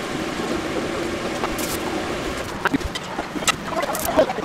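A steady low kitchen hum, then from about halfway a few light knocks and clinks of tableware being handled on a wooden counter.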